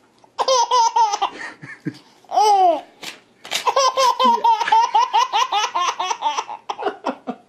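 Baby belly-laughing in three fits of rapid, high-pitched 'ha-ha' pulses, the middle one a single squeal, set off by paper being torn in front of him. A short rip of paper comes between the fits about three seconds in.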